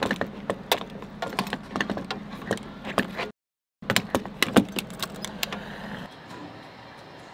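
Refuelling at a gas pump: a steady hum with many sharp, irregular clicks and knocks from the fuel nozzle in the car's filler neck. The sound breaks off for half a second about three seconds in, and after about six seconds only a faint steady hiss remains.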